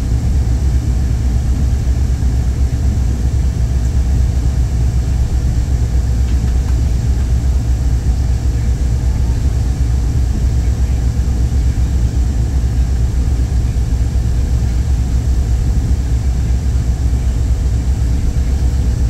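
Steady low running rumble heard from inside a moving vehicle's cabin.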